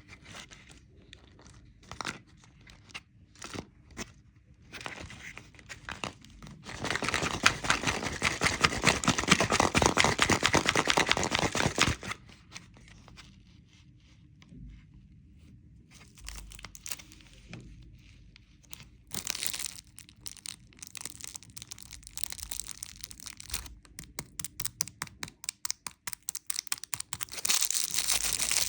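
Candy wrapper being handled, crinkled and torn open: scattered crackles at first, then a loud stretch of dense crinkling, a pause, and more crinkling and tearing that grows busier near the end.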